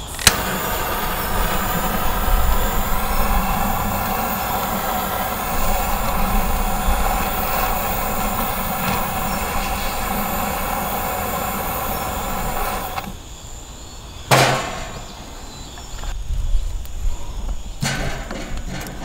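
Long-nozzle torch lighter clicked on and burning with a steady hiss and a whistling hum, held to a fire-starter rope for about thirteen seconds before it cuts off. A single knock follows a second later, then a few light clicks of wood near the end.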